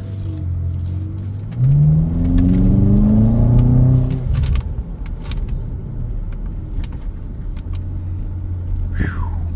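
BMW E70 X5M's twin-turbo V8 running with a low rumble; about a second and a half in it revs up, its pitch climbing for a couple of seconds, then drops back to the steady rumble.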